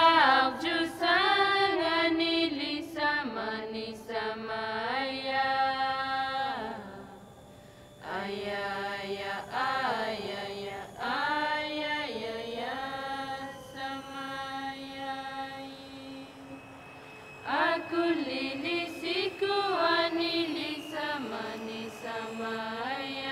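A single unaccompanied voice singing a traditional Inuit song: long held notes that slide between pitches, in three phrases with short breaks between them.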